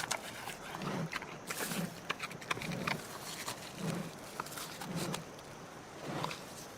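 An animal making low, even pulses of sound about once a second, with scattered sharp clicks between them.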